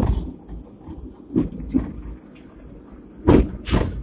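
Hong Kong Millennium tram No. 169 running along its track with a low rumble, and two pairs of sharp clunks, one pair about a second and a half in and the louder pair near the end.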